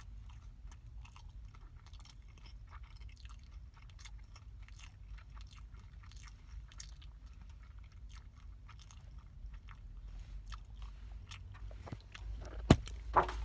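Close-up eating sounds of a hamburger being chewed: soft crunching and wet mouth clicks over a low rumble. Near the end come two sharp, loud knocks as the phone recording it is handled.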